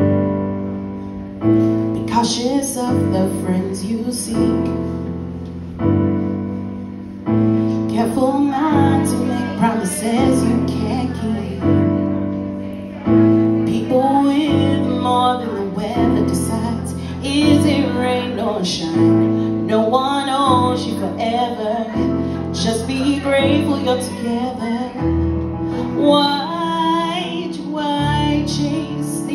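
A woman singing with electric keyboard accompaniment: keyboard chords alone at first, the voice coming in about eight seconds in over chords that change every second or two.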